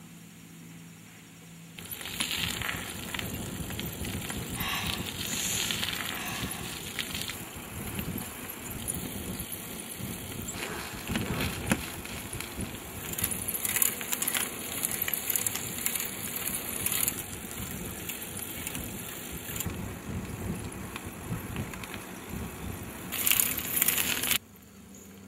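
A bicycle being ridden on a paved path: rattling and rolling noise from the tyres and chain, with a rough rushing noise throughout. It starts about two seconds in and cuts off abruptly near the end.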